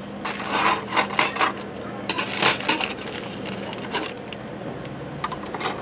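Thin wire fan guard being handled against a table, its wire rings clinking and rattling in several short runs of light metallic clicks.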